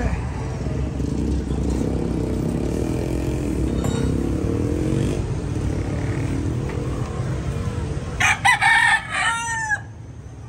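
A rooster crows once near the end, one drawn-out call of about a second and a half that falls in pitch as it ends. Under it, steady low vehicle noise runs and then drops away as the crow finishes.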